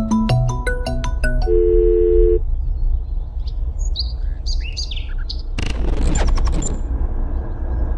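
A smartphone ringing with a marimba-style ringtone that stops about a second and a half in, followed by a short steady electronic tone as the unanswered call ends. Birds then chirp, and a brief burst of rustling noise comes about six seconds in.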